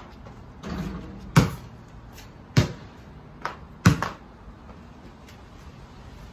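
A basketball shot rattles against a portable hoop's rim and backboard. The ball then bounces sharply on paving slabs, four times about a second apart, as it is dribbled.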